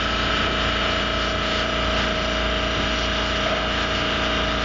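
Steady machine hum with a constant whining tone and no change in level.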